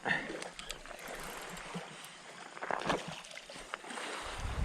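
Seawater sloshing and splashing at the shoreline, with a few short knocks and rustles of handling.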